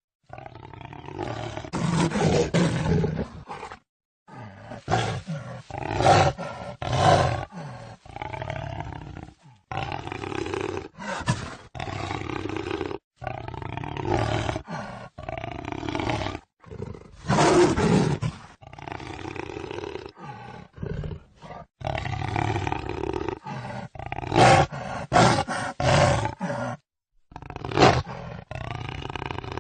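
Jaguar roaring: a string of rough, throaty roars and grunts separated by short gaps, several cutting off abruptly.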